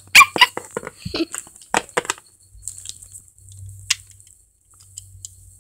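Handling noise from a small plastic toy dog figure being moved around a plastic dollhouse: a quick run of sharp taps and clicks in the first two seconds, then a single click about four seconds in.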